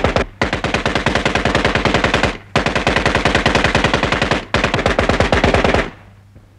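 A tripod-mounted .50-calibre Browning M2 heavy machine gun firing long bursts of rapid, evenly spaced shots. The end of one burst is followed by three bursts of about two seconds each, with brief pauses between them, and the firing stops about six seconds in. A sound meter put it at about 160 decibels.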